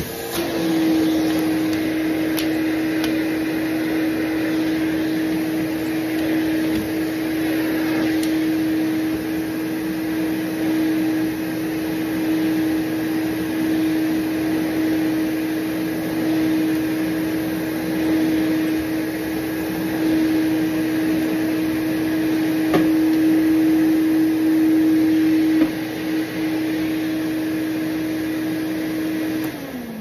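Hoover Portable Cleaning Center canister vacuum running with a steady hum while its wand is worked over carpet. Near the end it is switched off and winds down with a falling pitch. By its owner's account it sounds not in the best of shape, but it works.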